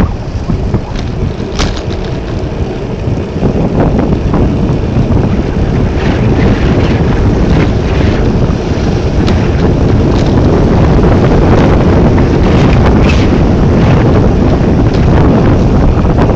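Strong gusting wind of a snowstorm buffeting the microphone: a loud, low rumbling noise that never lets up, with a few short ticks scattered through it.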